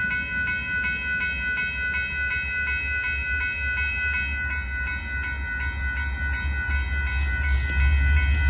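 Railroad crossing bell ringing in a quick, steady rhythm while the gates are down. Under it, a low rumble builds over the last few seconds as the Amtrak train approaches the crossing.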